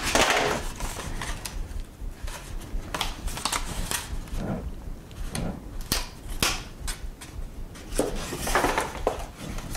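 Patterned paper being folded and pressed into a small gift box by hand: paper rustling and crinkling, with scattered light taps and clicks.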